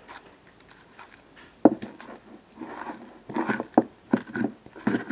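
Sticky homemade glue slime being squished and pulled by hand in a plastic bowl: a few short wet clicks and slaps, clustered about three and a half seconds in. The slime is still sticky, not yet fully set by the contact lens solution.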